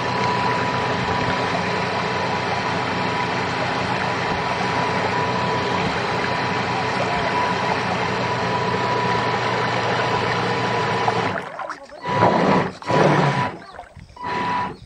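Radio-controlled tug boat's drive motor running steadily, heard close up from on board as a constant machine hum with a high whine. About eleven seconds in it cuts off suddenly, followed by a few loud, uneven rushes of noise.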